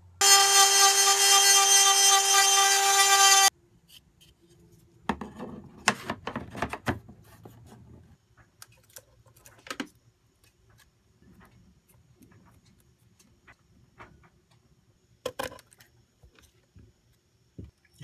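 A loud, steady buzzing tone for about three seconds that starts and stops abruptly. After it come scattered clicks and rubbing as hands work wires and push-on connectors into a 12 V DC fuse panel.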